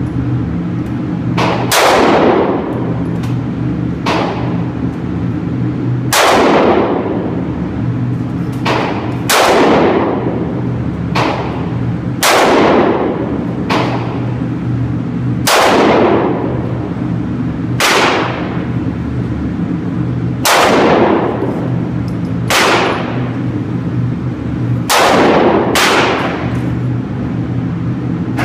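Smith & Wesson M&P Shield 9mm pistol firing single shots, about a dozen at uneven intervals of one to three seconds, each echoing through an indoor range, over a steady low hum.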